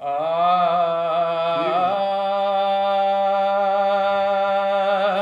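A man's unaccompanied voice holding one long sung note, with a short upward slide in pitch about two seconds in, then held steady until it stops: the drawn-out opening note of a Sindhi naat recitation.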